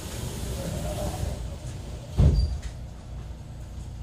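The sliding passenger doors of a JR Kyushu 813 series electric train closing, shutting with one loud thud about two seconds in, over the low hum of the train standing at the platform.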